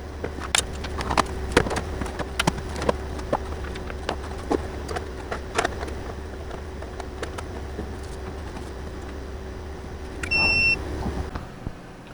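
A steady low machine hum with scattered clicks and knocks of things being handled. About ten seconds in comes a short, loud electronic beep, and the hum cuts off just after it.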